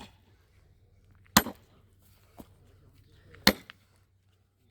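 Sledgehammer blows driving a steel wedge to split firewood: sharp, heavy strikes about two seconds apart, with a fainter knock between them.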